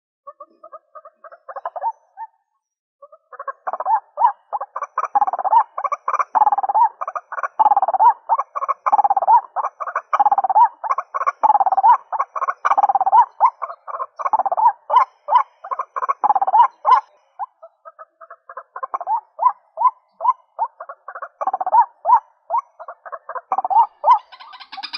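Female white-breasted waterhen calling, used as a trapping decoy call: a fast run of croaking notes with a louder rising-and-falling 'kwak' about every three-quarters of a second. It breaks off briefly about two seconds in and again near 17 seconds.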